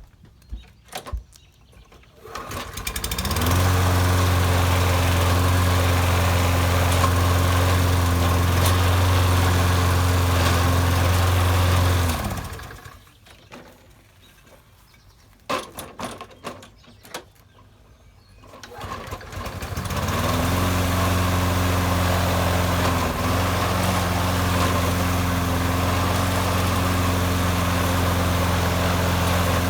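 Toro 20330 Recycler lawn mower's 6.75 HP Briggs & Stratton engine pull-started, catching at once and running steadily for about nine seconds before it is shut off. After a few seconds of quiet with some clicks, it is started again and runs steadily, with a brief dip about three seconds after restarting.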